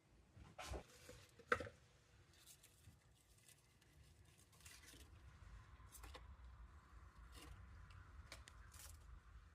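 Faint handling sounds: scattered rustles and light taps, with one sharp knock about a second and a half in and a faint steady hiss in the second half.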